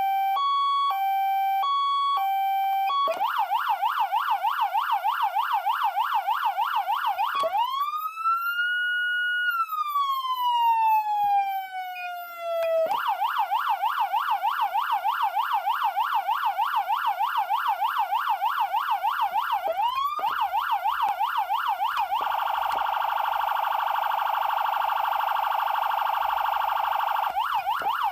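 CODE3 electronic siren amplifier running through its tones: a two-tone hi-lo alternating between two pitches, then a fast yelp, one long wail that rises and falls slowly, the yelp again, and from about two-thirds of the way in a much faster warble before it returns to the yelp near the end.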